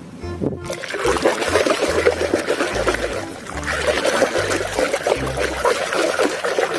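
Water splashing and trickling as a muddy toy is washed, starting about a second in.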